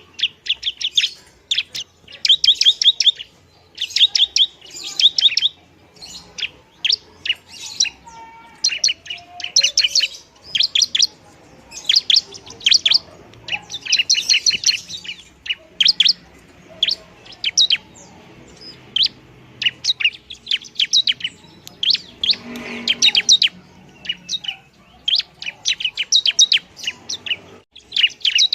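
Bar-winged prinia (ciblek) singing noisily: short bursts of rapid, sharp, high chipping notes, repeated phrase after phrase with brief pauses between them.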